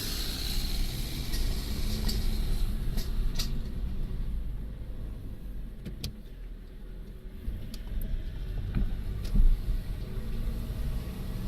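A car driving with a steady low rumble, and something in it rattling: scattered, irregular clicks and knocks, with one louder knock about nine seconds in.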